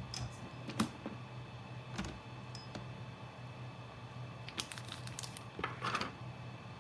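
A few light, scattered clicks and taps of small handling, over a steady low hum.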